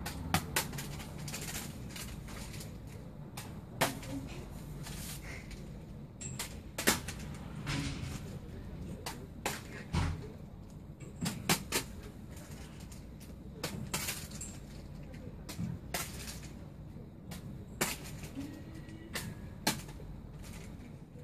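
A light ball being batted back and forth, heard as sharp, irregular taps and knocks every second or two over a low steady hum.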